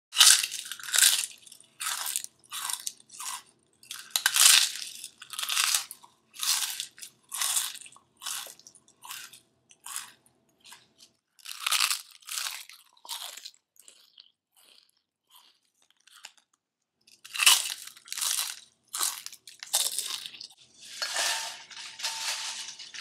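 Loud, crunchy chewing of crisp food, crunch after crunch about every half second to second, dropping to faint crunches for a few seconds in the middle before picking up again.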